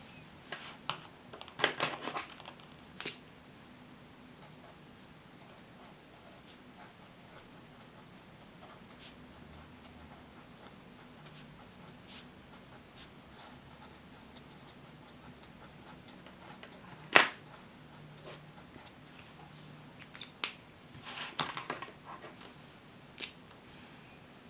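Quiet desk sounds of studying: pens picked up, capped and set down on a wooden table, with paper rustling and faint pen-on-paper writing. There are a few sharp clicks, the loudest about two-thirds of the way through, and small clusters of clicks and rustles near the start and near the end.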